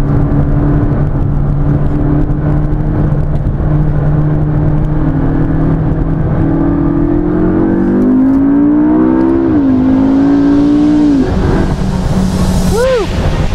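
McLaren MP4-12C's twin-turbo 3.8-litre V8, heard from inside the cabin under hard acceleration. The engine note runs steadily at first, then rises in pitch from about halfway. It dips briefly, as at an upshift, and climbs again. It falls away near the end as the throttle is lifted, with a short rise and fall just before the end.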